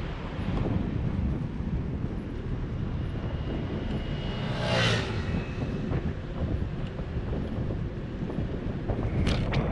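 Steady rumble of road traffic and wind on a bicycle-mounted microphone while riding. About five seconds in, a moped passes close by, its engine rising and falling in a short whine. Near the end there are a couple of sharp clicks.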